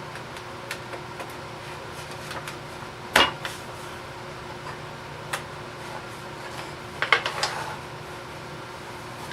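Wooden parts of a bottle tote knocking and clacking together as the glued bottom panel is slid into place. There are a few sharp knocks, the loudest about three seconds in and a quick cluster of three or four about seven seconds in, over a steady low hum.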